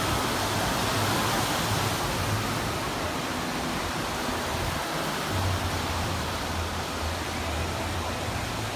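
Steady rushing water of a large wave pool: waves breaking and waterfalls pouring in one even wash of noise.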